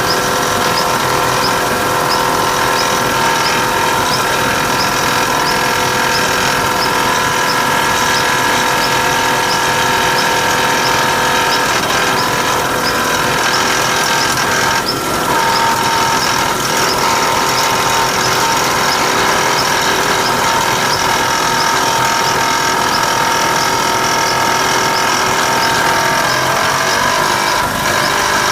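A machine running steadily with a high whine and squeal, the abnormal noise under examination, with a brief dip about halfway through.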